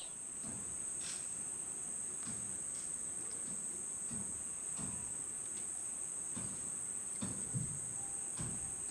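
Rainforest insects trilling as one steady high-pitched drone, with faint soft low thuds now and then.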